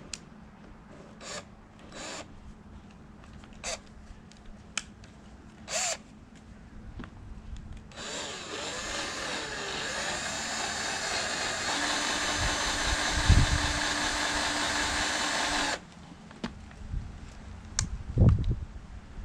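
A few seconds of scattered clicks and knocks, then a power drill runs for about eight seconds, settling into a steady whine partway through before stopping suddenly. More knocks follow near the end.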